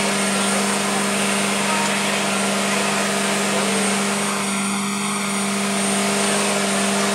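The giant robot's power unit running steadily: its LS3 Corvette V8 engine driving the hydraulic pumps that keep the system under pressure, a loud constant machine hum with a strong steady tone.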